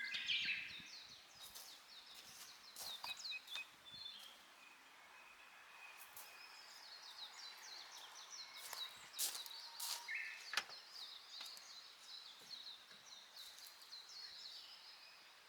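Faint outdoor birdsong: small birds chirping in quick repeated high notes, with some longer calls. A few sharp clicks sound about nine to eleven seconds in.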